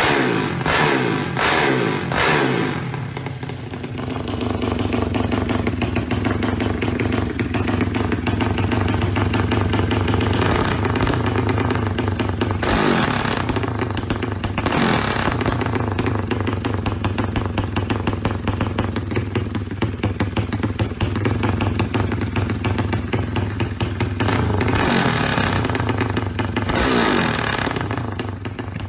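Drag-racing motorcycle engine revved in a quick series of sharp blips, then settling to a steady, rough idle with a few short revs and one longer rev near the end.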